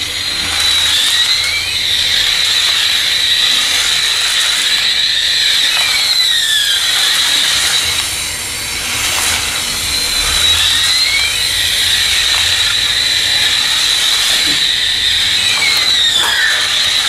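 Wired remote-control toy airliner playing its electronic jet-engine sound effect through a small speaker while it drives. The sound is a steady high whine, with pitch sweeps that recur every few seconds as the sound loop repeats.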